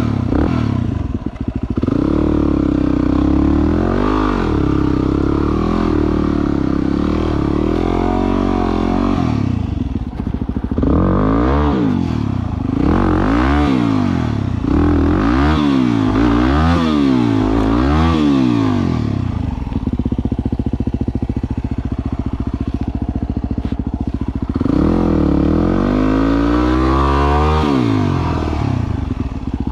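An engine running and revved up and down again and again: a quick run of about six short revs in the middle and one longer rev near the end, with steadier running between them.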